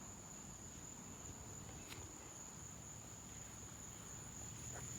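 Insects in the garden, crickets by their sound, trilling in one steady, high, continuous tone. It is faint, with a low background rumble and a single small click about two seconds in.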